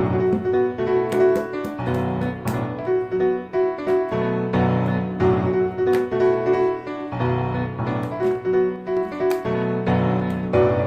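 Background piano music playing a repeating, gently rhythmic figure, with a few faint sharp clicks on top.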